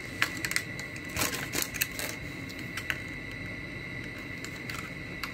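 Clear plastic doll packaging crinkling and crackling as it is handled, with scattered sharp clicks, most of them in the first three seconds.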